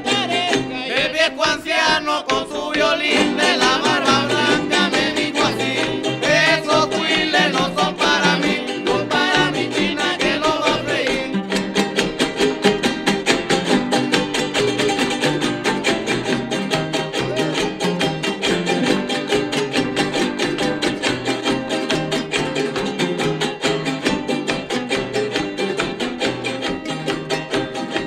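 Son jarocho music: a man sings over strummed jaranas, and about eleven seconds in the voice stops and the jaranas carry on alone with a fast, steady strumming rhythm.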